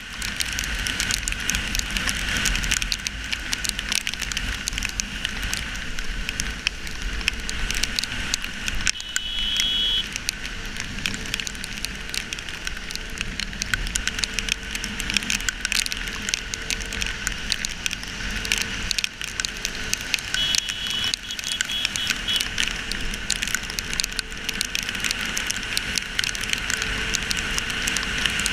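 Heavy rain crackling and pattering on a GoPro Hero3's waterproof housing on a moving motorcycle, over a steady hiss of wind and wet road. The KTM Duke 200's single-cylinder engine runs faintly underneath.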